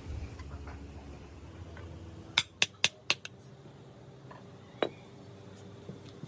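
Sharp metallic taps: four quick strikes about a quarter second apart, then one more a couple of seconds later. Under them is a low rumble that stops about a second and a half in.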